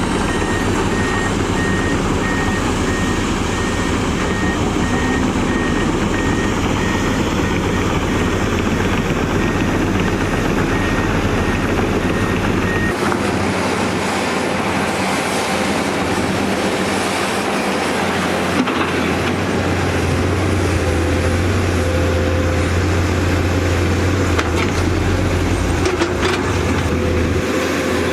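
Heavy diesel construction machinery running steadily under load, a dull low engine rumble with track and body noise. Through the first half a faint high beep repeats at an even pace, and about halfway through the low rumble changes pitch.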